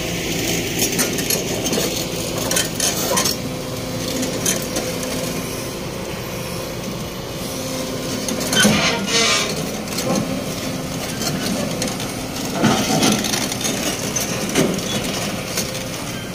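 Kobelco SK220 crawler excavator climbing the steel ramps of a lowboy trailer: its diesel engine runs steadily under repeated clanks, creaks and sharp cracks from the steel tracks on the ramp. The clanking is heaviest about halfway through and again near the end.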